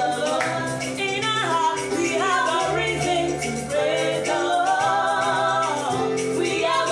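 A gospel song: a singing voice holding and sliding between notes over instrumental backing with a bass line.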